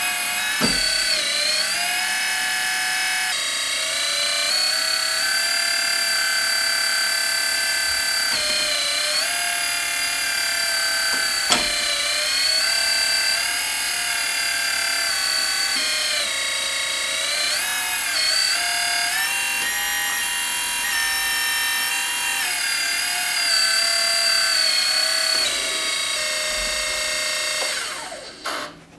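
Electric hydraulic pump motor of a Kabolite K350 (Huina) 1/14-scale RC hydraulic excavator whining steadily, its pitch sagging briefly each time the boom, arm or bucket takes load, with one sharp tick partway through. Near the end it winds down and stops.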